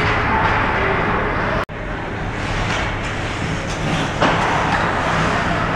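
Ice hockey arena ambience: a steady noisy din of the rink and crowd during play. It cuts out to silence for an instant about one and a half seconds in, and jumps a little louder about four seconds in.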